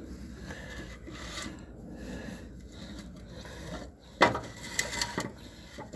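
Oil-soaked oil filter and work gloves rubbing and scraping against metal parts under the truck as the filter is worked loose and manoeuvred out. A sharp knock about four seconds in, then a couple of lighter clicks.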